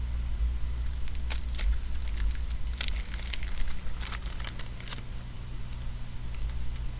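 Baseball trading cards being handled and flipped through by hand: a run of light clicks and rustles over the first five seconds or so, over a steady low hum.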